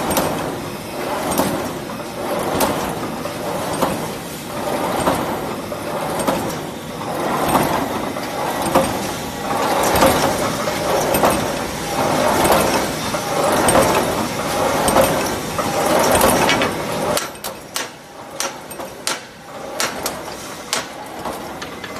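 Automatic welded wire mesh machine running, its mechanical cycle repeating a little faster than once a second. About three-quarters of the way through, the steady noise drops and separate sharp clicks stand out.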